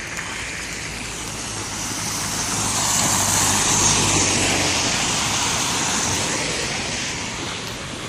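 A car passing on a snowy street, its tyres hissing through snow and slush, building to a peak about halfway through and then fading away.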